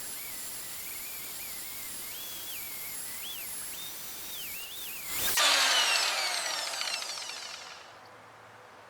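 Highland Park wet grinder/polisher's motor running with a high whine that wavers up and down in pitch as a stone is ground on the 50-grit pad. About five seconds in there is a loud burst, then the whine falls in pitch and dies away over a couple of seconds as the wheel spins down.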